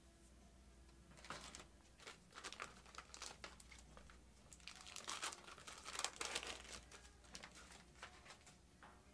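Packaging in gloved hands crinkling and rustling: irregular bunches of short crackles from about a second in, busiest in the middle and thinning out near the end.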